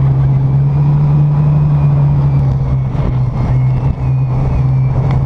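Wooden speedboat's big-block V8, said to be a 496, running loud and steady at speed, one unbroken low drone with the rush of wind and water over it.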